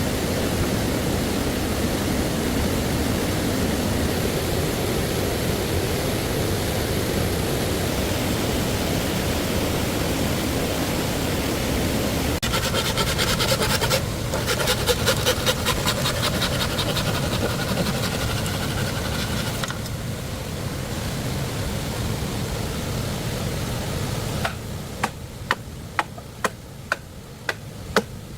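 Steady rush of flowing stream water, then about seven seconds of fast, regular rasping strokes from hand-tool work on bamboo, then a run of sharp separate knocks near the end.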